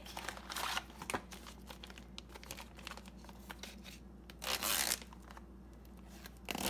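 A cardboard bacon box being opened and its plastic pouch pulled out and handled: scattered rustling and crinkling of plastic and cardboard, with a louder crinkling burst about four and a half seconds in and a shorter one near the end.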